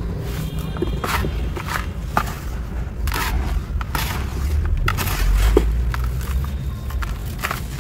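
Dry, gritty sand-cement powder being scooped and poured by hand in a plastic bucket: uneven hissing, rustling pours and scrapes of the grains, several each second. A low rumble runs underneath and swells about five seconds in.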